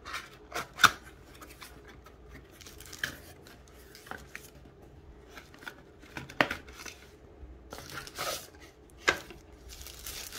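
Cardboard box being opened by hand: scattered clicks and taps of the flaps and inner carton, then rustling and crinkling of the thin white wrapping as the chopper is lifted out, loudest near the end.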